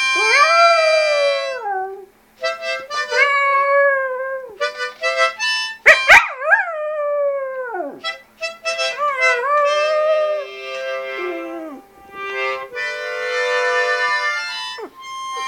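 Shih Tzu howling along to a harmonica: several long howls that rise and then sink in pitch, with steady harmonica chords held between and under them, the longest chord near the end. A sharp knock about six seconds in.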